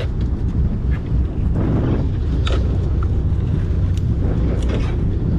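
Steady low drone of a sportfishing boat's engine, with wind and water noise over it and a few faint clicks.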